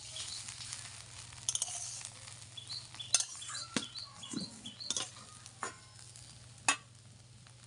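Metal spatula stirring and scraping fried banana stem in a metal wok, with a light sizzle and several sharp clinks of the spatula against the pan, the loudest about three seconds in and again near the end.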